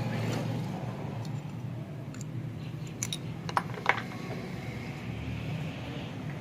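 A few light metallic clicks and taps of starter-motor parts being handled during reassembly, the loudest just before the middle, over a steady low background hum.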